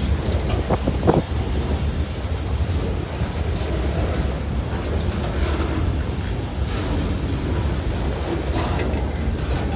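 Freight cars rolling past: a steady heavy rumble of steel wheels on the rails, with a louder clank about a second in.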